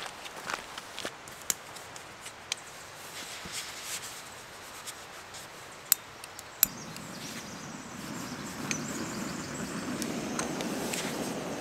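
Jetboil gas canister stove being handled with light clicks and knocks, then two sharp clicks as it is lit; the burner catches and runs with a steady hiss that grows louder toward the end.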